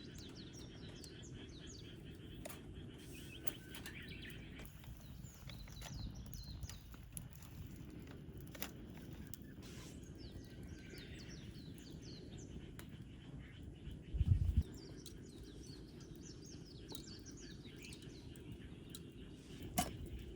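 Small birds chirping again and again over a steady low outdoor rumble, with scattered faint clicks. A brief low thump, the loudest sound, comes about two-thirds of the way through, and a shorter one near the end.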